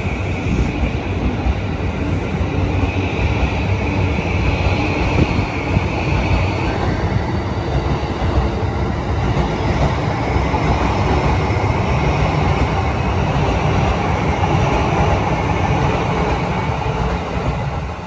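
JR East E235-1000 series electric train pulling out of the station and running past: steady rolling and running noise, with a faint whine that rises gently as it gathers speed.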